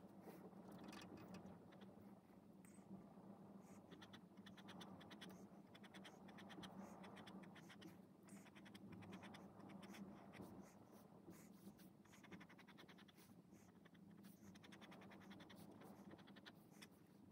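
Pen scratching faintly on sketchbook paper in runs of quick, short strokes, over a low steady hum.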